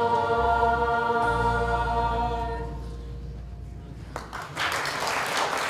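A choir holds the final chord of a song over low accompaniment, and the chord fades out about three seconds in. Audience applause breaks out about four seconds in.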